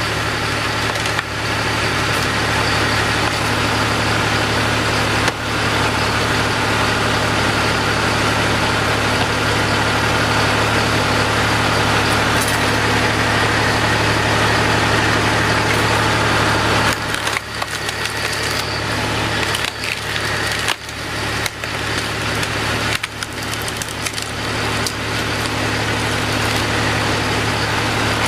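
Tractor-driven log splitter at work: the tractor engine runs steadily under the machine while the wood cracks and splinters as it is split. The sound turns more broken and uneven about two-thirds of the way through.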